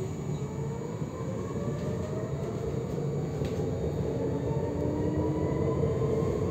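Tram heard from inside the car while accelerating: the electric traction motors whine, rising slowly in pitch, over a steady rumble of wheels on the rails.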